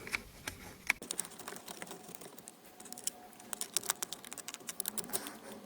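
Plastic lower steering-column cover being pushed back into place: a run of light, irregular clicks and taps, thickest in the second half.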